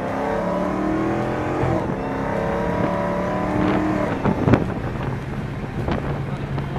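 Supercharged 6.2-litre V8 of a Dodge Hellcat, heard from inside the cabin under hard acceleration, its pitch rising as the car pulls. About four and a half seconds in a sharp bang stands out, then the engine settles to a steady lower drone as the car backs off.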